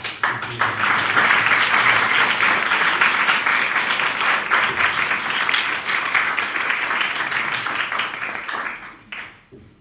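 Audience applauding: a dense spell of many hands clapping that starts suddenly and dies away about nine seconds in.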